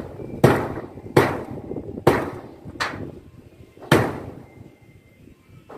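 Hammer blows at the foot of a satellite dish mount on a sheet-metal roof: five sharp strikes about a second apart, each with a short ring, the last about four seconds in.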